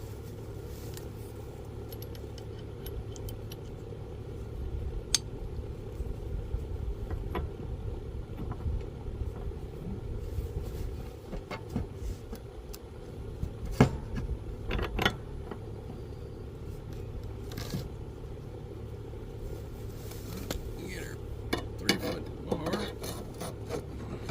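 Scattered metallic clinks and scrapes of tools and mower-blade hardware being handled, over a steady low hum. The loudest clicks come about two-thirds of the way in, with a cluster near the end.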